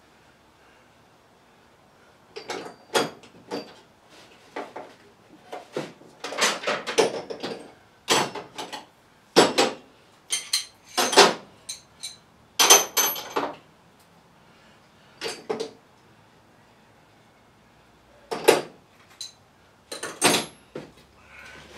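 Steel hand tools clanking and clinking as they are put away in a metal rolling tool chest, with its drawers opening and shutting. The clanks come in irregular clusters, some ringing briefly, with a couple of quiet pauses between.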